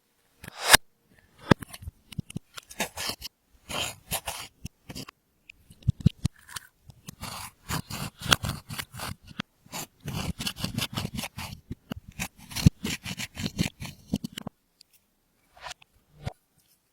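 Clear slime being mixed and worked, with makeup and glitter folded in: a dense run of sticky clicks and crackling pops that stops about fourteen seconds in, leaving a few scattered clicks.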